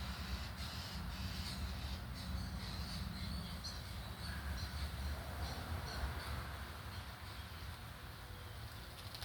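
Wild birds chirping in short, quick calls, over a steady low rumble. The chirping thins out in the last few seconds.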